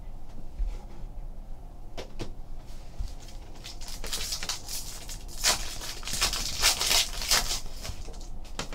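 Plastic wrapper of a Donruss basketball card pack being torn open and crinkled, a dense crackling rustle starting about four seconds in and lasting about three seconds, after a few light handling knocks.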